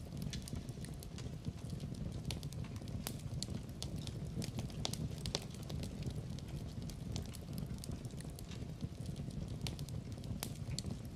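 Fire burning in a fireplace: irregular sharp crackles and pops, several a second, over a steady low rumble of the flames.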